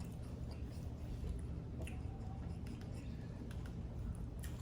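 Faint eating sounds: chewing, with small scattered clicks and squishes of food being handled, over a steady low hum.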